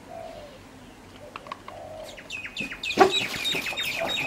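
Animal calls: two faint whines in the first two seconds, then a fast run of short, high chirping calls from about two and a half seconds in, with a sharp knock at about three seconds.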